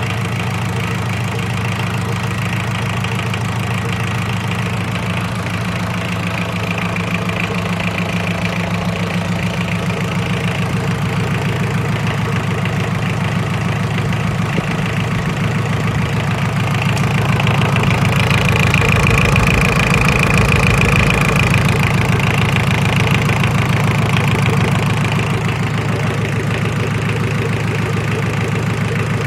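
Yanmar 4JM four-cylinder marine diesel engine idling with a steady, even diesel clatter. It gets slightly louder a little past halfway. The seller presents it as an original, unrebuilt engine that runs extremely smoothly.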